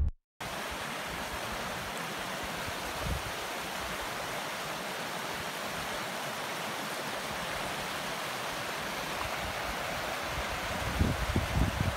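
Mountain stream rushing over rocks: a steady hiss of running water that starts just after a moment of silence, with some irregular low rumbling near the end.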